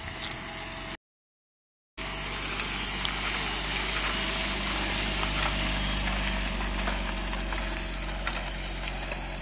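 Car engine idling steadily at constant revs, with a hiss of noise over it; the sound cuts out completely for about a second near the start.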